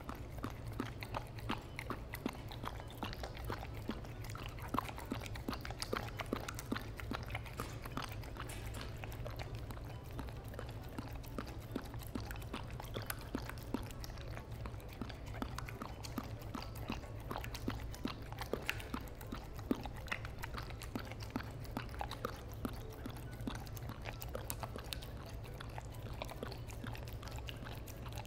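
A German Shepherd eating blueberry yogurt close to the microphone: a steady stream of small licking and chewing clicks and smacks. A constant low hum lies underneath.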